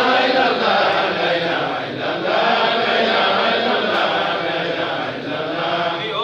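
Several voices chanting together in a steady, unbroken religious chant, a group Islamic recitation.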